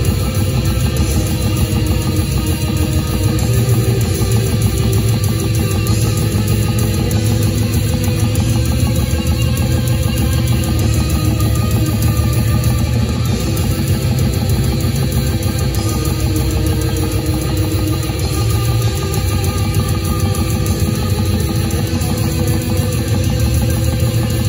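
Live death metal band playing without a break: heavily distorted electric guitars, bass and drums, loud and dense in the low end, heard from the crowd in a club.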